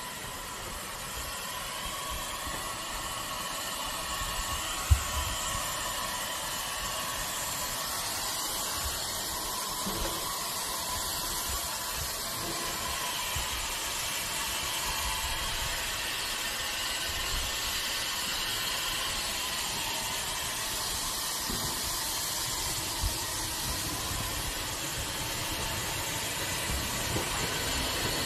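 Steady hiss of escaping steam from a standing steam tank locomotive, swelling slightly over time, with a single sharp knock about five seconds in. Near the end a low rumble of an approaching train begins.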